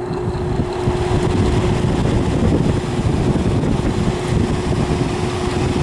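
Zenith 5000 BTU window air conditioner running on fan only: the blower motor gives a steady hum over a rushing rumble of air, and the unit is vibrating.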